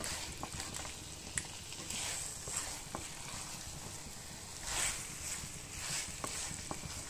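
A wooden spatula stirring boiled potato cubes through thick tomato masala in a nonstick kadai: soft scraping and light taps against the pan over a faint sizzle of the frying masala.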